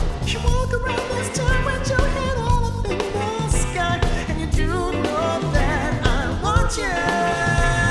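A live pop-funk band playing: drum kit, bass and electric guitar keep a steady groove under keyboards, while singers' voices bend over it and hold a long note near the end.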